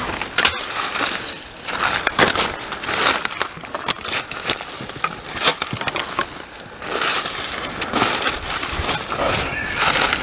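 Footsteps crunching through dry leaf litter and brushing through undergrowth: an irregular run of crunches and rustles.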